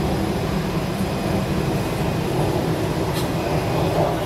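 Batara Kresna diesel railbus running, heard from inside the passenger car: a steady low drone of engine and running gear, with two faint clicks.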